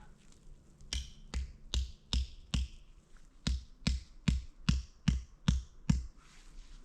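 A run of hard, even knocks, about two and a half a second: five, a short pause, then seven more, each a deep thud with a sharp crack on top.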